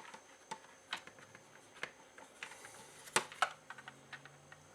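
Light plastic clicks and taps of small parts being handled and fitted into the open shell of a Nerf Rival Apollo blaster, scattered and irregular, the loudest about three seconds in.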